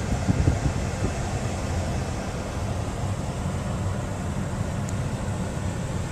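Steady low rumble of a Chevrolet Avalanche's engine idling, with the climate-control fan blowing, heard from inside the cabin. A few soft bumps in the first half-second.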